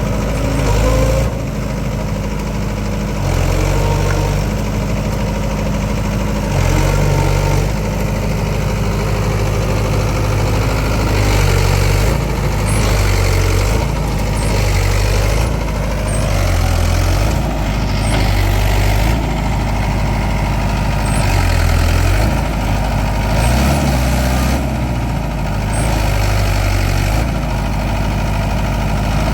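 Heavy diesel engine running under changing load, its note stepping up and down every one to two seconds, as of a JCB 3DX backhoe loader digging and loading mud.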